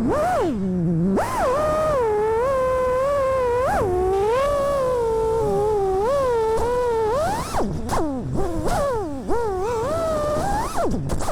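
FPV quadcopter's brushless motors whining, the pitch swooping up and down sharply with the throttle. From about seven and a half seconds in the sound turns choppier, with short clicks.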